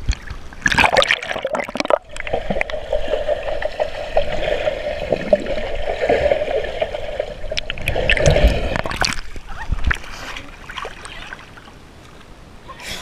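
Pool water splashing at the microphone, then a steady muffled underwater drone from about two seconds in, heard with the camera under the surface while a swimmer moves beside it. Splashing comes back as the camera breaks the surface about nine seconds in.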